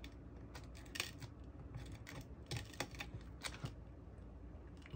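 Light, irregular clicks and crackles of a plastic pry tool working under a cracked smartphone screen as the shattered glass panel is pried up from the phone's frame.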